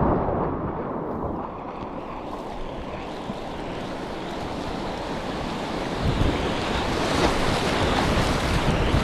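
Whitewater rapids rushing around a kayak, with paddle strokes splashing and waves slapping the hull. The sound is dull and muffled for the first couple of seconds, then brighter and louder from about six seconds in.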